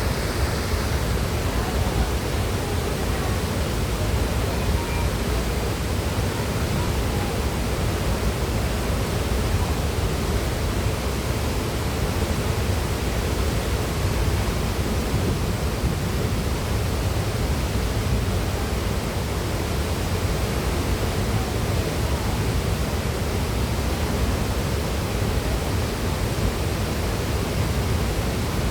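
Steady rush of falling water from Haew Suwat Waterfall, an even unbroken roar.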